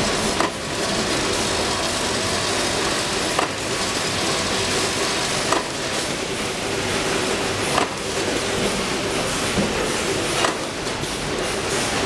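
YH003A semi-automatic crimping machine crimping 3-pin plug inserts onto cable ends: a short sharp clack of the press about every two to three seconds, five in all, over a steady machine hum.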